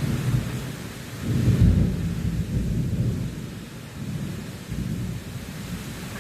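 Heavy rain pouring steadily in a strong wind, with low rumbling surges that come and go, the loudest about one and a half seconds in.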